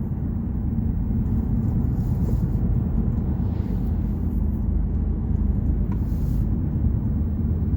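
Road noise inside a car on new Cooper Road Control Touring tires: a steady low rumble and drone from the front driver's-side wheel, which the driver suspects is a wheel bearing going bad.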